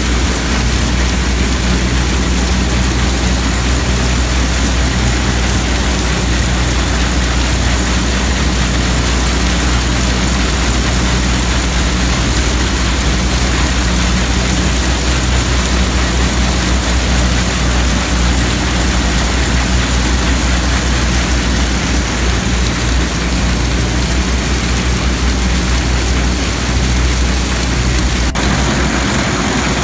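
Antique belt-driven threshing machine running steadily, with a dense rushing clatter of straw and chaff going through it and out the blower stack over a constant low drone of the drive.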